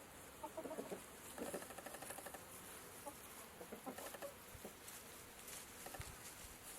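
Birds, apparently fowl, giving soft, short clucking calls, scattered throughout, over faint crackly background hiss.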